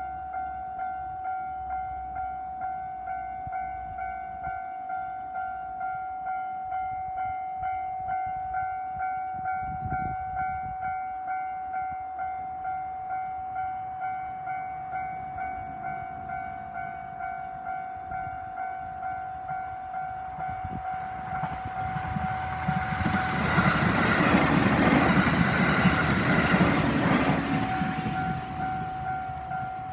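Japanese level-crossing alarm ringing a steady, evenly repeating electronic ding. About two-thirds of the way in, a local passenger train passes over the crossing, and the rumble and rattle of its wheels on the rail swell up and drown the bell for several seconds. The bell is heard again near the end as the train noise fades.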